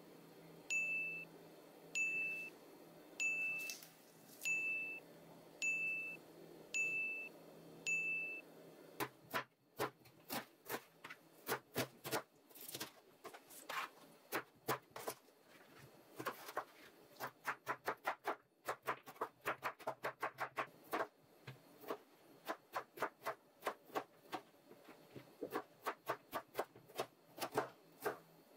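A short, bright ding sounds about once a second, seven times. It matches the sound effect that goes with each ingredient caption. Then, from about nine seconds in, a kitchen knife chops vegetables on a plastic cutting board in quick, irregular taps.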